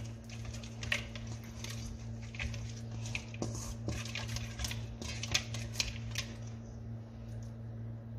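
Chicken pieces being mixed by hand in marinade in a stainless steel bowl: irregular wet clicks and knocks of the meat against the metal bowl, over a steady low hum.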